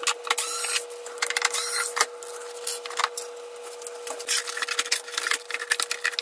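Plastic rear cover of an LG 27MP58VQ monitor being pried off its clips: irregular snaps, clicks and plastic scraping, over a faint steady hum.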